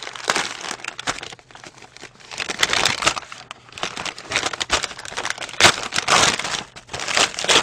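Paper takeout food bags being opened by hand, crinkling and rustling in irregular bursts, loudest in the second half.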